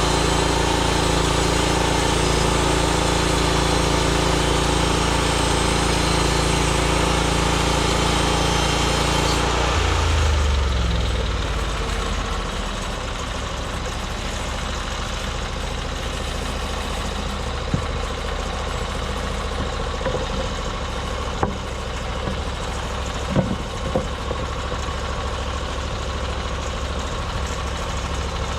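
Norwood MX34 bandsaw mill's gas engine running steadily, then throttled down about ten seconds in, its pitch falling to a low idle. A few short knocks come later.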